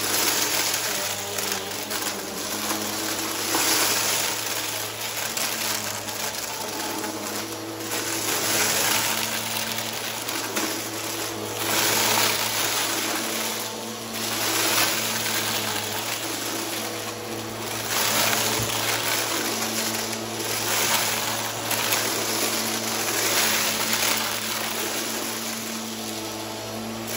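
Bissell upright vacuum cleaner running with a steady motor hum, sucking up a thick scatter of red, white and blue glittery debris from a rug. A rushing, crunchy hiss of debris swells and fades several times as the vacuum is pushed over the pile.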